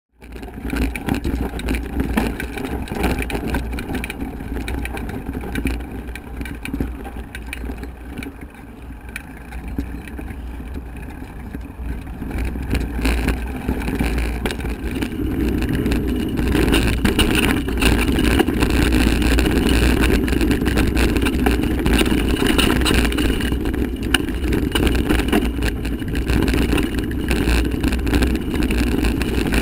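Wind buffeting a Polaroid XS100 action camera's microphone during a mountain bike ride on dirt singletrack, with tyre noise and rattles and knocks from the bike over the trail. It gets louder and busier from about halfway in.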